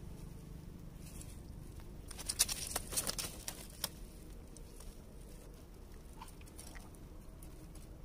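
A freshly landed fish flapping and slapping against rocks and a man's hands, a quick flurry of slaps and rustles about two to four seconds in, then only faint scattered ticks.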